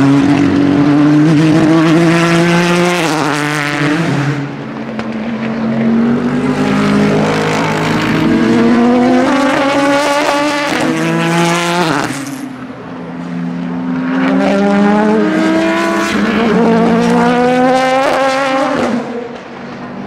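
Race cars accelerating hard past the track, engines climbing in pitch through the gears with a step down at each upshift, several times over. A Ford GT's twin-turbo V6 is heard first, and a prototype sports car passes about halfway through.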